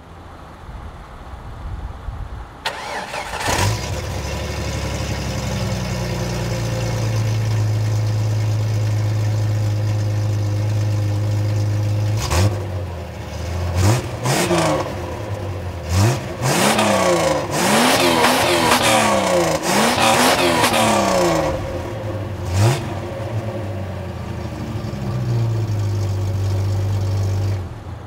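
1996 Jeep Cherokee's 4.0-litre inline-six starts and settles to a steady idle. About twelve seconds in, it is blipped hard several times, then revved up and down repeatedly against the rev limiter, before dropping back to idle near the end.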